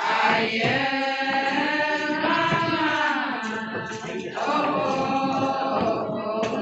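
A women's chorus singing a ponung song together, unaccompanied, in long held phrases with a brief break about four seconds in.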